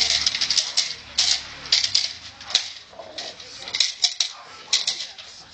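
Irregular sharp clicks and rattles, a couple of clusters each second, from a protection dog's struggle on a bite sleeve while held on a leash.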